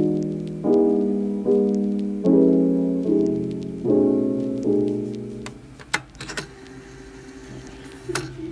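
Soft piano music, slow chords struck about once a second and dying away, fading out a little past halfway. A few light clicks follow in the quieter stretch, two about six seconds in and one near the end.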